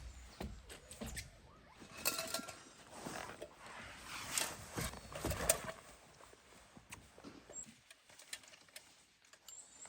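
Scattered rustling with light clicks and knocks, busiest in the first six seconds and sparser after, with a brief pitched sound about two seconds in.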